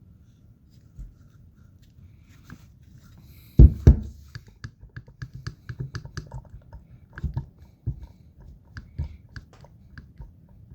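Irregular crunching and clicking ticks, about three or four a second, from the belt-drive area of a Mercedes Viano W639, with two heavy thumps about three and a half seconds in. The owner puts the noise down to the power steering pump, with the idler pulley also suspected.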